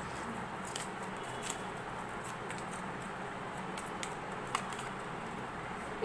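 Tarot cards being handled as one is drawn from the deck and laid down: a few faint, soft clicks and slides over a steady background hiss.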